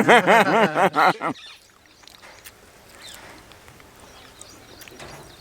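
A person's voice, rising and falling in quick repeated bursts, for about the first second. It then gives way to quiet outdoor background with a few faint ticks.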